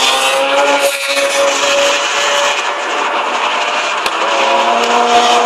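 Car driving at highway speed, heard from inside the cabin: a steady engine hum under heavy road and wind noise.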